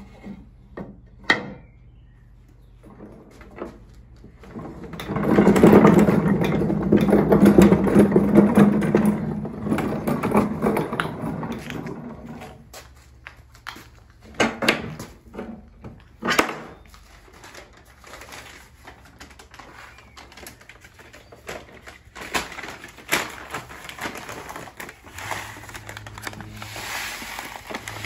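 Stone hand mill (Roman-style rotary quern): a few wooden knocks, then about seven seconds of loud stone-on-stone grinding as the upper millstone is turned on the lower one, before any grain is in it. Further single knocks follow.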